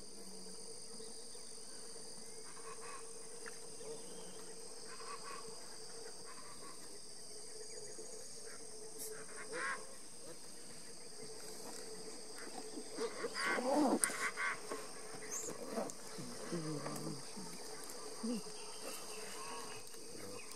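Steady high insect drone over the river. About two-thirds of the way through, a cluster of louder, honk-like animal calls stands out, from the giant otters.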